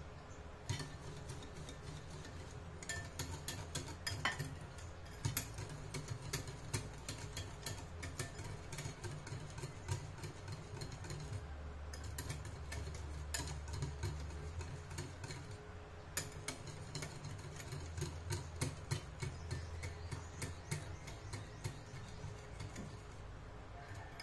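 Wire whisk beating a thin liquid mixture in a glass bowl, its wires clicking and tapping rapidly and irregularly against the glass, with two short pauses.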